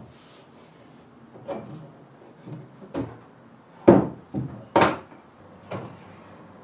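An old wooden chest being handled: a series of about seven wooden knocks and clunks, the loudest two about four and five seconds in.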